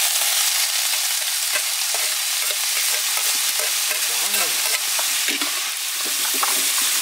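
Julienned coconut heart sizzling in a hot wok as it is stir-fried. A metal spatula scrapes and knocks against the pan with scattered clicks over the steady sizzle.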